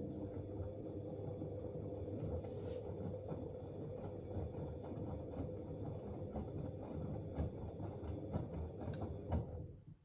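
Bauknecht WAP9988 front-loading washing machine tumbling its drum during the wash of a 60 °C coloured cycle: a steady motor hum with soft knocks of laundry turning over, stopping shortly before the end as the drum pauses.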